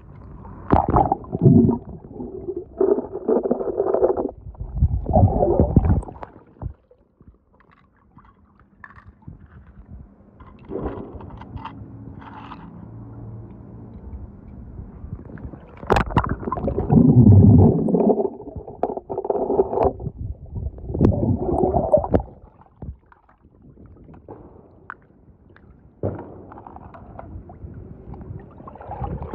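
Swimming-pool water gurgling and sloshing in a series of separate bursts, some cutting off abruptly, with quieter stretches between.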